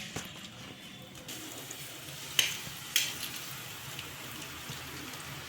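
Chakli (rice-flour murukku) frying in hot oil in a kadai: a steady sizzle that thickens about a second in, with two sharp clicks, likely a metal utensil, about half a second apart past the middle.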